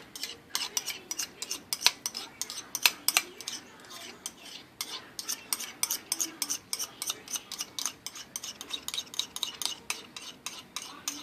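A kitchen utensil clicking and scraping rapidly and repeatedly against a dish, as melted butter is scraped out into the mixing bowl.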